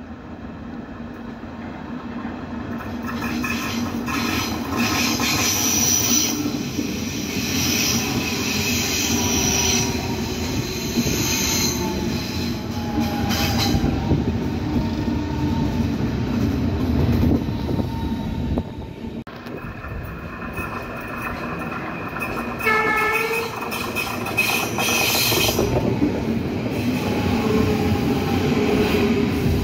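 Berlin S-Bahn electric train approaching round a curve and running close past, growing louder over the first few seconds. A steady rumble of wheels on rail runs throughout, with high squealing tones from the wheels on the curved track that come and go.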